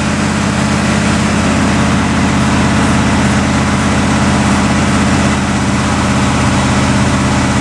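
Square-body Chevrolet pickup's engine idling steadily, shortly after a quick start.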